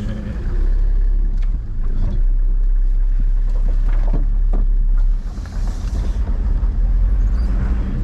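Four-wheel-drive ute's engine running low and steady while it crawls over rocks, heard from inside the cab, with a few sharp knocks as the vehicle jolts over the rocks about two and four seconds in.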